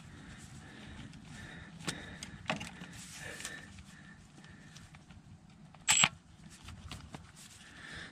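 Milwaukee Fuel brushless cordless power tool and socket working a 15 mm nut off the engine's ground cable: faint mechanical whirring and clicks, with one short loud burst about six seconds in.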